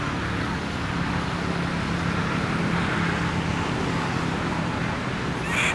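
Steady drone of motor traffic with a low hum running under it. Near the end comes one short high-pitched squeak.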